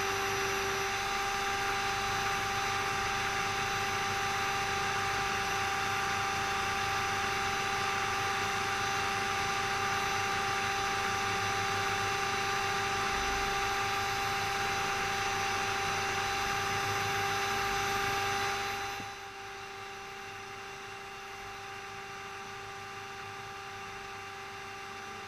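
A steady machine noise with a high, even hum. It cuts off suddenly about 19 seconds in, leaving a quieter hum.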